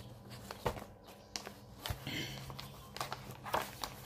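Scattered handling noises from a cross-stitch kit being unpacked: a series of short taps and knocks, with a brief rustle of the stiff canvas or its packaging about two seconds in.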